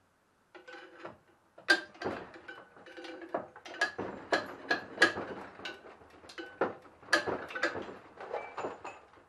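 Metal tools clanking and clinking against a small engine as parts are worked off it: a string of irregular sharp knocks, two or three a second, some ringing briefly.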